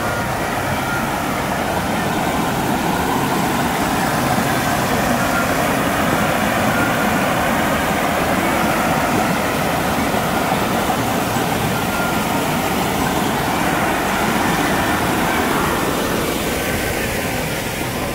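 Steady rushing of water spilling down a small rock cascade, easing off near the end.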